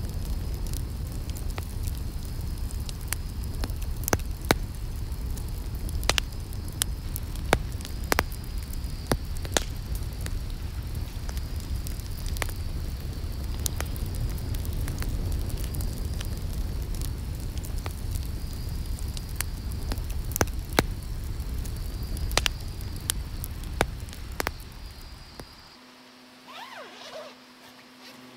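Wood campfire burning: a steady low rush of flame with frequent sharp crackles and pops from the logs. About 25 seconds in it drops away to a much quieter stretch with a low steady hum.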